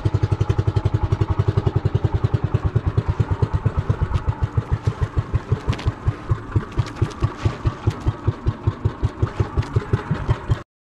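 Engine of a motorized outrigger boat (bangka) running under way, with an even, rhythmic beat of about six pulses a second that slows slightly in the second half. It cuts off abruptly just before the end.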